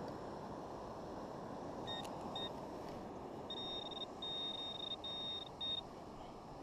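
Handheld metal-detecting pinpointer probe beeping at one high fixed pitch as it is pushed through loose sand: two short beeps, then a run of four longer beeps that signal it is close to a buried metal target. Steady surf and wind noise underneath.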